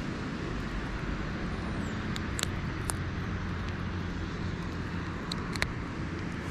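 A steady low motor drone, like distant traffic or aircraft, with a few sharp clicks about two to three seconds in and again later, and a brief high chirp.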